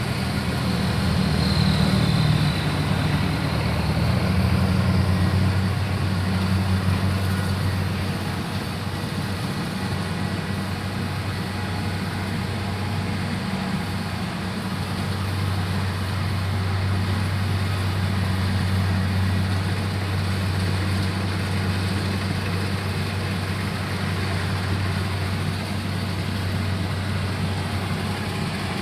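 Kubota engine running steadily with an even low hum, a little louder in the first several seconds. A faint high whistle rises and falls briefly about a second in.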